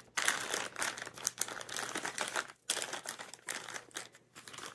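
Clear plastic zip-lock bags crinkling as they are picked up and shifted by hand, in uneven bursts with two brief pauses.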